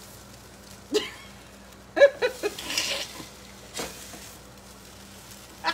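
Spatula scraping and turning pancakes in a sizzling frying pan, with a few short knocks against the pan and a brief burst of hissing. The batter is scorching in the pan.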